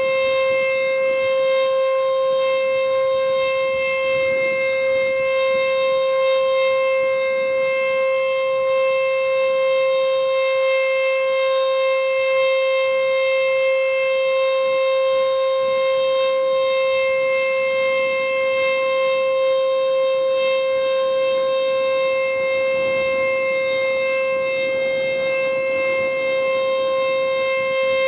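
ACA Screamer (2001-SRNB) nine-port electromechanical tornado siren sounding a steady tone during a test. The pitch holds level and the loudness stays even, with no rise or fall.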